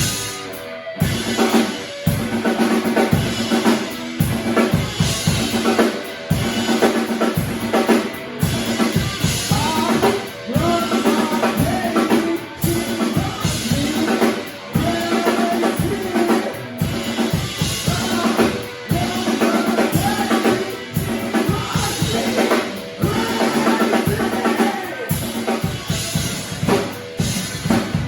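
Band music driven by a drum kit, with kick drum and snare hits going steadily under other pitched instruments.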